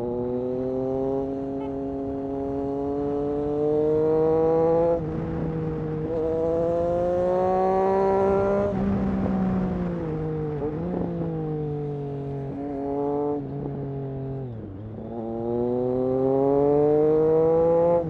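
Triumph Street Triple RS 765 inline three-cylinder engine through an SC Project S1 exhaust, accelerating hard under way: the note climbs, drops at an upshift about five seconds in, and climbs again. It then eases off for several seconds, the pitch falling with a few brief dips and rises at the gear changes, before pulling up again near the end.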